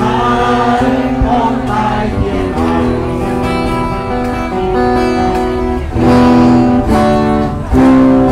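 A protest song sung by a crowd to strummed acoustic guitar, with long held notes in the melody; it gets louder about six seconds in.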